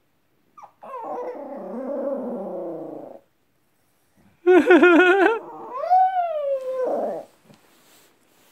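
A Maltese howling in a wolf-like way: two long howls, the second louder, wavering at first and then gliding up and falling away.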